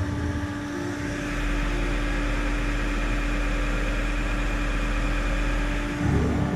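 Colchester T8 CNC lathe running under program with a steady hum. About a second in, a deeper drive drone with a higher whine starts and holds. It stops about six seconds in with a brief low thud.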